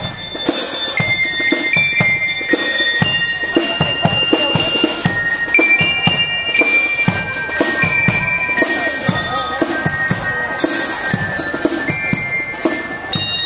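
Marching band playing a march: drums beat a steady rhythm under a high, bell-like melody of ringing notes.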